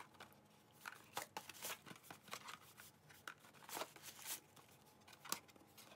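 Tissue paper and cardboard gift packaging being handled: faint, scattered rustling and crinkling with light taps and clicks.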